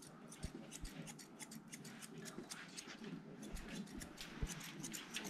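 Grooming scissors snipping through a dog's coat, many quick irregular snips in a row.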